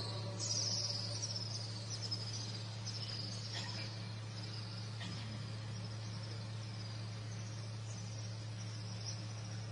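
Crickets chirping in short, high, falling chirps about once a second, fading later on, over a steady low electrical hum.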